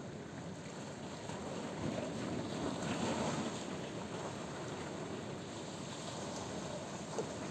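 Sea surf: waves washing onto the shore in a steady rushing hiss, with one wave swelling louder about two to three seconds in and then easing off.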